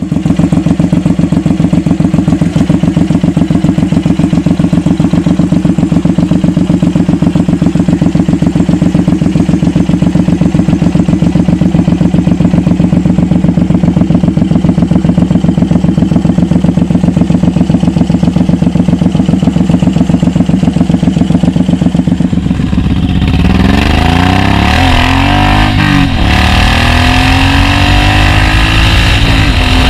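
Suzuki Boulevard M109R cruiser's big V-twin, fitted with swept chrome aftermarket pipes, idling steadily with an even pulse. About 23 seconds in it gives way to a cruiser under way, its engine note rising and falling with the revs over a hiss of wind.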